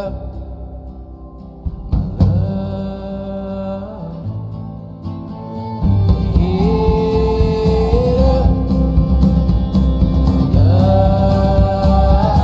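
Background music from a song, with long held notes over a steady accompaniment. It grows louder and fuller about halfway through.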